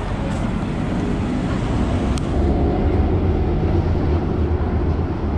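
Mega coaster train running along its track: a steady low rumble with wind rushing over the microphone.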